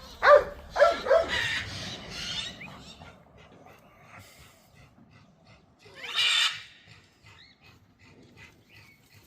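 Blue-and-yellow macaw calling: three short calls in the first second or so, then one loud harsh squawk about six seconds in.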